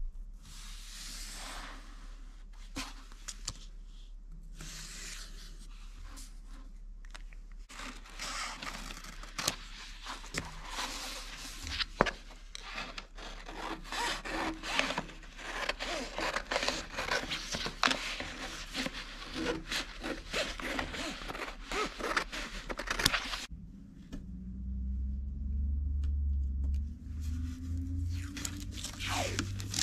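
Hands rubbing and scraping over sheets of sticky vinyl, its paper backing and film-covered aluminium on a bench, with scattered sharp clicks. Near the end this stops and a low steady hum takes over.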